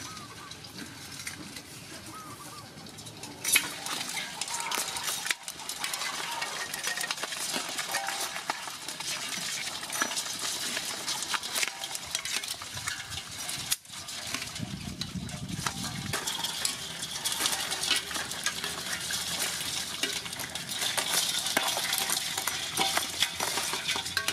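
Live rice field crabs scrabbling in a metal basin: a dense, continuous patter of small clicks and scrapes as their shells and legs knock on the metal. It grows busier a few seconds in, with a sharper clink of metal tongs among them.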